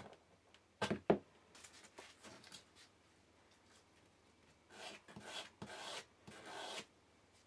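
A chisel paring a small wooden insert against a wooden benchtop with a few sharp clicks, then the insert rubbed on a sheet of sandpaper in about four short back-and-forth strokes.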